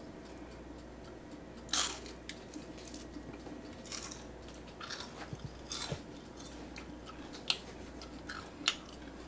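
A person biting into and chewing a deep-fried potato chip: scattered short crunches with mouth sounds, the loudest crunch about two seconds in.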